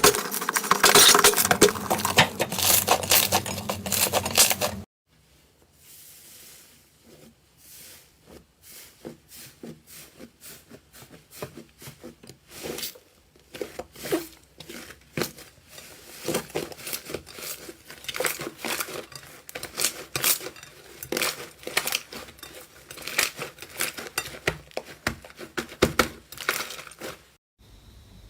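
Slime being squeezed and stretched by hand, giving sticky clicks and pops. For about the first five seconds there is loud, dense crackling; it then cuts off abruptly, and quieter, scattered clicks follow that gradually grow louder and more frequent.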